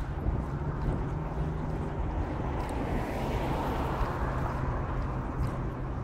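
Outdoor ambience of wind rushing over the microphone, with a steady low engine hum underneath and a broader rush that swells about halfway through.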